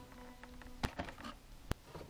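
Two short sharp clicks about a second apart, over faint room tone.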